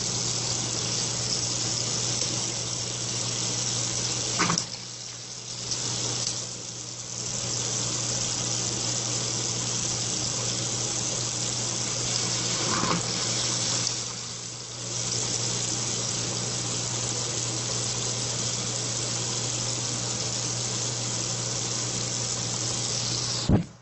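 Bathroom sink faucet running, a steady stream of water splashing into the basin near the drain. The flow sound dips briefly a few times, and two short clicks come through, one about four seconds in and one near the middle.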